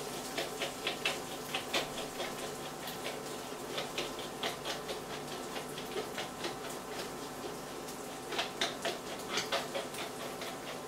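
Pepper mill grinding black pepper over a frying pan, in several short bursts of fast clicking and crackling, over a faint steady sizzle of frying beans and sausages.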